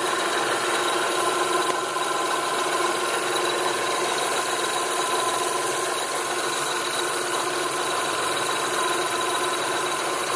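Toyota Solara V6 engine idling steadily, heard close up in the engine bay, with a steady high-pitched whine over a light metallic clanking. The owner cannot place either noise but hears them from the accessory side of the engine.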